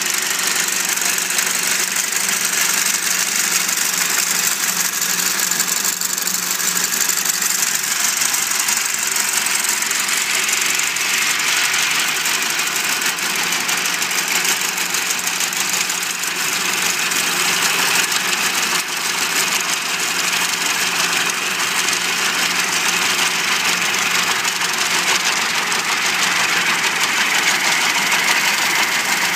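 Case 930 tractor's engine running steadily under PTO load, driving a Massey Ferguson 41 sickle mower. The mower's reciprocating knife clatters steadily as the cutter bar cuts grass.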